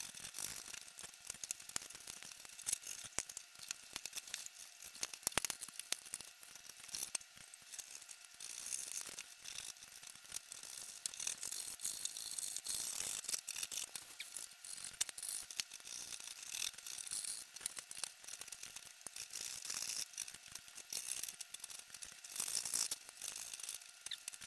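Hobby knife cutting and prying thin wood sheeting off a model airplane's wooden fuselage: a continuous run of small clicks, cracks and scrapes as the sheeting splits from the formers.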